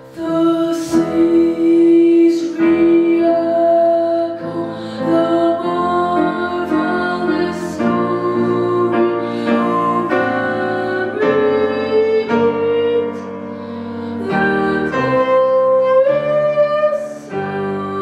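A boy singing a hymn solo into a handheld microphone, accompanied on grand piano.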